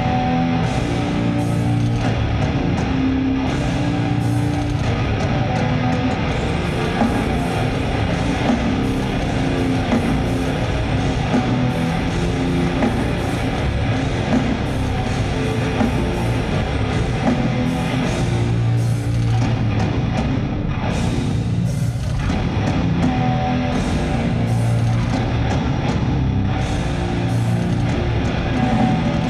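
Death metal band playing live: heavily distorted electric guitar riffing through the arena PA, dense and steady.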